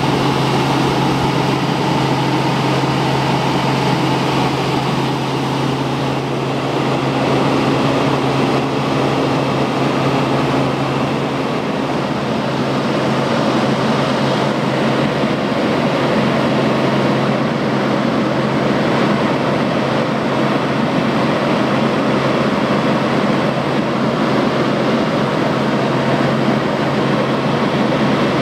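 Helicopter in flight heard from inside the cabin: the steady drone of engine and rotors, a constant low hum under a wide rush of noise.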